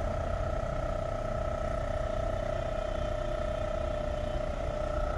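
A steady, unbroken mechanical hum with a low rumble underneath.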